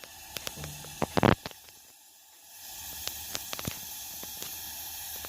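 Gas stove broiler burner hissing steadily, coming up about halfway through, with scattered clicks and a knock about a second in.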